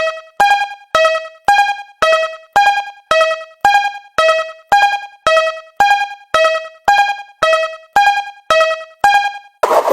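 Japanese railroad crossing alarm ringing, two alternating bell-like tones about twice a second, high-low, each struck sharply and fading. Near the end it stops and a louder, dense rushing sound takes over.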